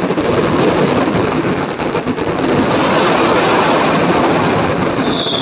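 Fireworks finale barrage: aerial shell bursts and crackle fire so fast that they merge into one loud, continuous rumble. A high whistle comes in near the end.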